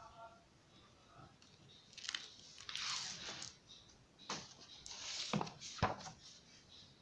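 Paper rustling as a large-format book is opened and its pages turned by hand: several short rustles from about two seconds in, with a sharp tap near the end.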